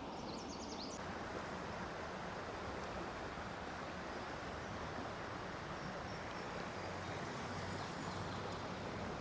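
Steady rush of flowing river water, with a few faint high chirps about half a second in.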